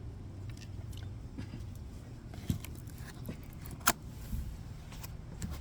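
Faint handling clicks of small metal parts, an aluminium rivet with stainless steel washers in a hand rivet gun, with one sharper click about four seconds in, over a low steady rumble.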